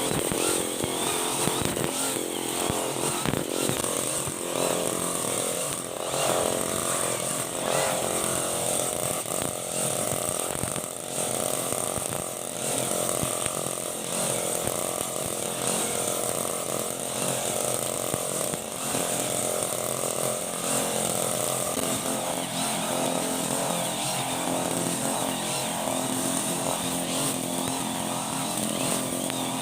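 Honda GX35 four-stroke brush cutter engine running steadily at working speed, its loudness wavering slightly.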